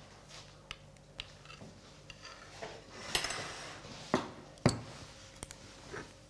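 Metal spoon stirring softened ghee in a small nonstick saucepan, off the heat: soft scrapes and scattered clinks of spoon on pan, the sharpest two about four and four and a half seconds in.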